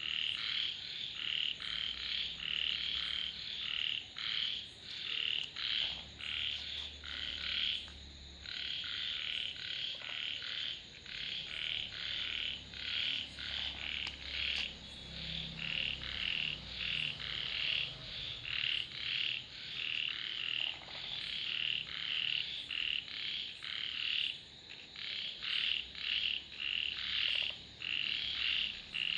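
Frogs calling in a chorus: short, high-pitched calls repeated about two times a second without a break.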